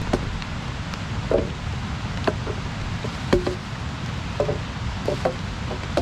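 Wood being struck by hand: about eight sharp knocks with a short hollow ring, irregularly spaced roughly half a second to a second apart, over a steady low rumble.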